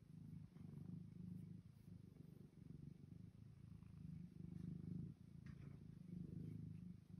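Long-haired cat purring quietly while its chin and head are scratched, the purr rising and falling in slow swells with its breathing.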